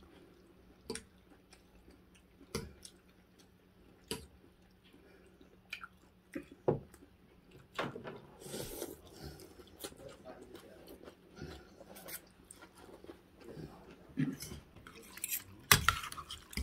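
People eating noodle soup: scattered clinks of metal forks and spoons against ceramic bowls, slurping of rice vermicelli noodles about halfway through, and chewing. The sharpest clatter of utensils in a bowl comes near the end.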